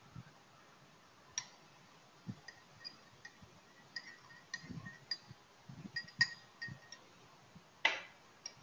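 Metal teaspoon stirring tea in a porcelain cup, clinking irregularly against the sides with a light ring, then one louder knock near the end.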